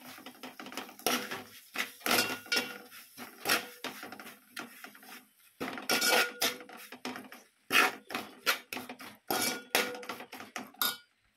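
Metal spoon scraping and clinking against a stainless steel pan while fried onions and spices are stirred and roasted, in irregular strokes with a faint metallic ring and a couple of brief pauses.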